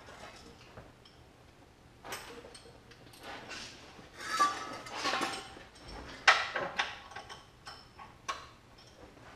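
Irregular metallic clinks and scrapes of a wrench on an oil pan drain plug, as the plug is checked for tightness; the sharpest clink comes about six seconds in.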